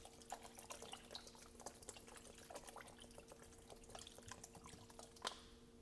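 Cold bottled water being poured into a pot of hot gumbo, faint, heard as many small irregular splashes and drips over a low steady hum.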